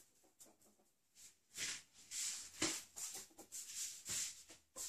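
A ferret's claws scrabbling and skittering on a tile floor as it chases a tennis ball, in irregular short bursts, with one sharp knock about two and a half seconds in.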